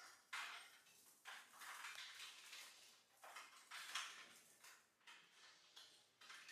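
Faint, irregular rustling and light scraping, about one or two bursts a second, as bundles of network cable are pulled and handled among the metal grid of a suspended ceiling.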